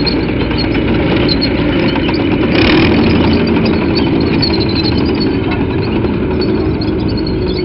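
Tracked amphibious transporter driving past over dry dirt: its engine running under load together with the running gear and tracks, loudest about two and a half seconds in.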